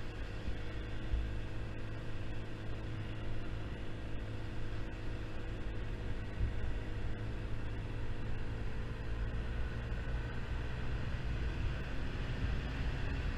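Yamaha Zuma 50cc scooter engine running at steady cruising speed, its hum holding a near-constant pitch that rises slightly near the end, over a steady rush of wind and road noise.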